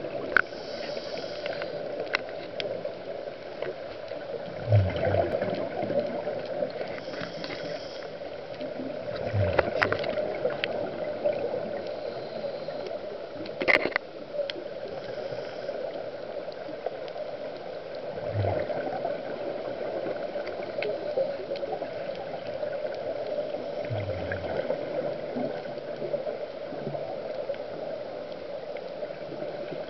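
Scuba diver breathing through a regulator underwater, with bursts of exhaled bubbles gurgling about every four to five seconds over a steady hiss.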